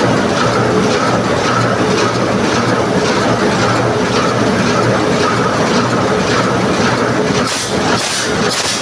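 Loud, steady machinery noise with a constant hum. About a second before the end it takes on a regular pulsing, about two beats a second.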